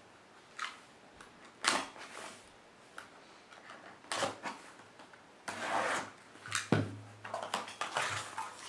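Box cutter slicing the packing tape on a cardboard shipping box, then the cardboard flaps being pulled open: a series of short scrapes and tape rips, with a sharp knock near the end.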